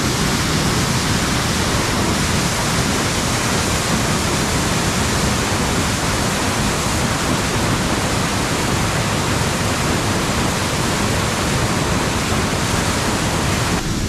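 A large waterfall plunging onto rock, heard up close: a loud, steady rush of falling water and spray.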